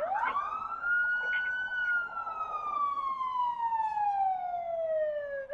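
Police car siren in wail mode. It rises quickly in pitch over about a second, holds briefly, then falls slowly for several seconds, and a new rise begins at the very end.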